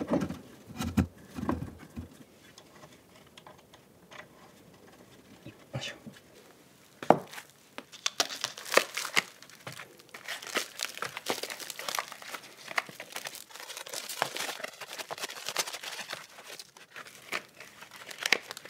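Packaging being crinkled and rustled by hand as something is unwrapped, getting dense and busy from about seven seconds in. A few dull thumps in the first two seconds.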